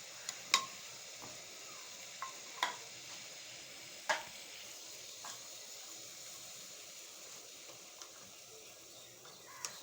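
Pot of herbal kahwa boiling on a stove: a steady low hiss with sharp pops every second or two, loudest about half a second and four seconds in.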